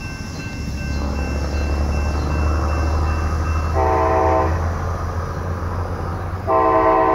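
Approaching Union Pacific diesel locomotive with a steady low engine rumble, sounding its multi-note air horn: a short blast about four seconds in, then a long blast near the end.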